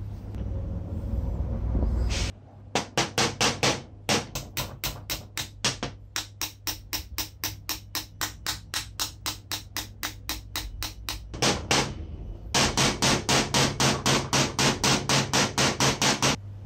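A small hammer taps rapidly and steadily on the metal housing of a vintage Uryu air impact screwdriver, about four sharp strikes a second. A short pause falls about twelve seconds in, and a harder run of strikes follows.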